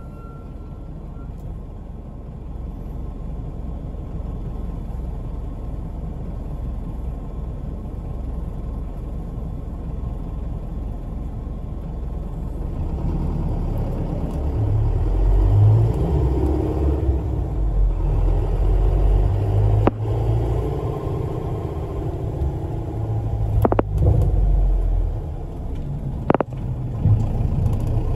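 Engine and road rumble heard from inside a community bus under way, growing louder and heavier from about halfway through. Two sharp knocks sound near the end.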